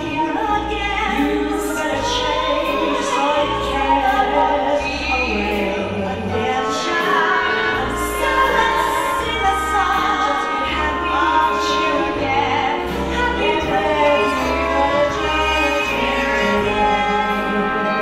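Two women singing a duet over a live stage band, with a steady bass line and regular cymbal strokes.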